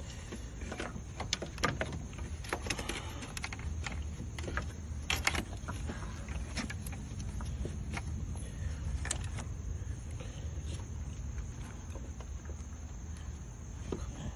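Scattered metal clicks and clinks of parts and tools being handled while a replacement alternator is fitted back into a car's engine bay, over a steady low rumble.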